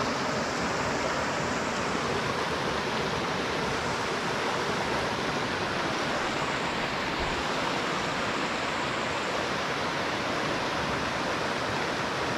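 Rocky mountain river rushing steadily over a shallow riffle.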